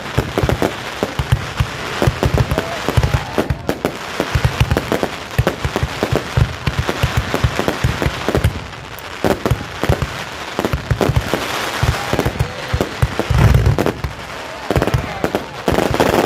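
Fireworks display: a dense, continuous run of bangs and crackles over deep booms, with the heaviest booms about thirteen seconds in.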